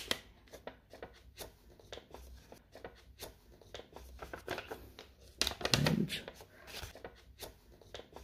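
Folded paper being handled: fingers pressing and bending the wings of a paper airplane, giving scattered soft crackles and rustles of creased paper, busiest about five and a half to six seconds in.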